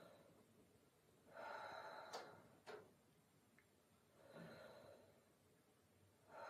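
A woman taking slow, deep breaths in and out through the open mouth, three soft breaths a couple of seconds apart, as in a rib-cage expansion breathing exercise. Two small clicks come a little after two seconds.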